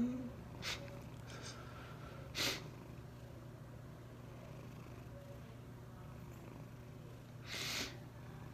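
Cat purring in a steady low rumble, with three short sniffs over it, the longest near the end.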